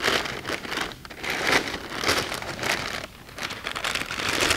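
Brown masking paper crinkling and rustling as hands press and tuck it around a motorcycle fuel tank, in several uneven swells.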